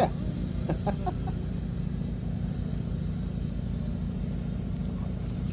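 Steady low engine hum throughout, with a brief exclamation right at the start and a few short voice sounds about a second in.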